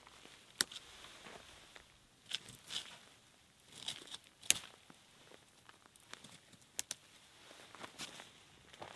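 Scattered short crinkling rustles and sharp clicks, about a dozen of them at irregular intervals.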